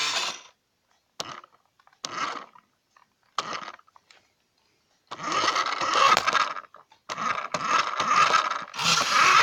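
Remote-controlled Brum toy car's small electric motor and gears whirring, first in four short half-second spurts, then in two longer runs of a second or two.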